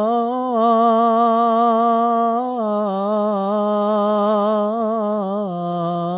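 A muezzin's voice calling the adhan, holding one long ornamented note on the drawn-out end of a phrase. It steps up in pitch near the start, steps down about two and a half seconds in and again about five and a half seconds in, and rises again near the end.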